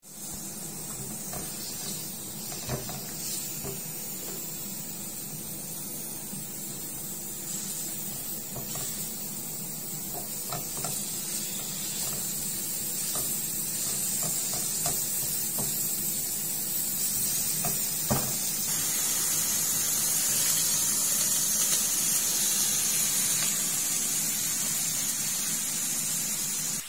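Sliced pork neck sizzling in a nonstick frying pan, a steady hiss that grows louder about two-thirds of the way through. Occasional clicks and scrapes come from a plastic spatula turning the meat.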